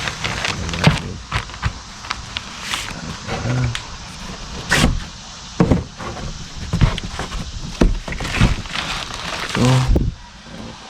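Cardboard parts boxes being handled and opened: irregular knocks, thuds and scraping rustles of cardboard and packed parts being moved.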